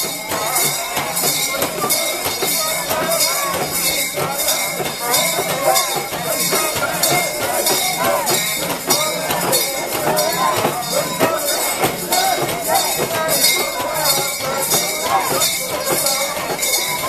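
Rhythmic metallic jangling, about two to three clinks a second, from the metal rings and fittings of a Shinto mikoshi (portable shrine) as its bearers jostle it, over the bearers' shouts and crowd voices.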